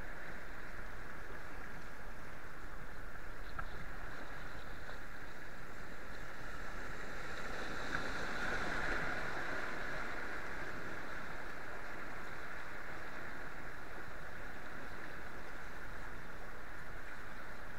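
Rushing whitewater heard from a kayak on a concrete whitewater course: a steady rush of turbulent water that swells louder about halfway through as the boat runs through a churning stretch of white water.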